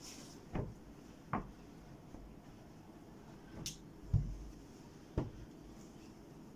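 Hands setting down and arranging a cloth frock on a sheet-covered table: about five soft knocks and thumps, the loudest a dull thump a little past the middle.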